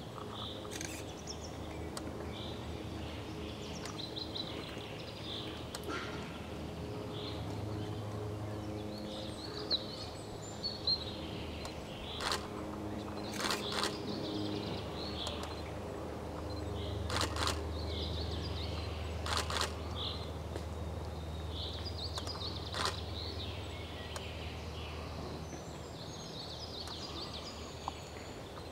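Forest ambience of songbirds chirping over a low steady hum, with about ten sharp cracks and clicks scattered through the middle, from wild boar rooting and feeding on the forest floor.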